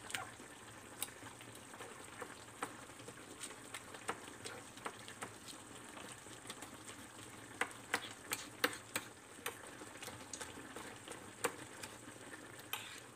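A fork mashing soft roasted eggplant on a plate: light, irregular clicks and taps of the tines against the plate, coming faster in the second half, over a faint steady hiss.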